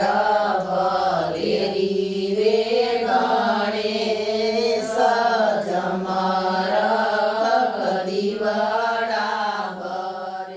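A small group of women singing a Gujarati folk wedding song (lagna geet) for the groom's procession together, with no instruments. The singing fades out near the end.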